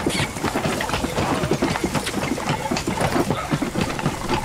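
Horse's hooves clopping with a cart rattling along, a dense, uneven run of knocks.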